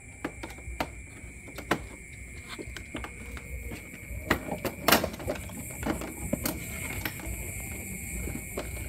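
Irregular light clicks, taps and knocks of hand tools and scooter parts being handled during a wiring check, with one louder knock about five seconds in.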